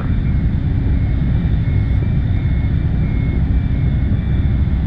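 A ferry's engines and machinery running: a loud, steady low rumble with a faint steady whine above it.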